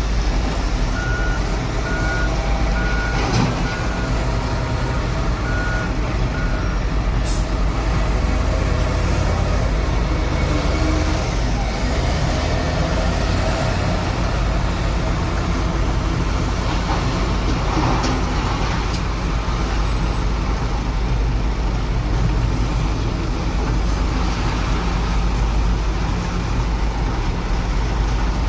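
JCB 3DX backhoe loader's diesel engine running steadily, with its reversing alarm beeping in an even series of short tones during the first several seconds.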